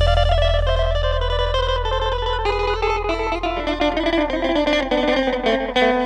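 Electric guitar solo: a quick run of single picked notes over a held low note, with the rest of the band dropped out.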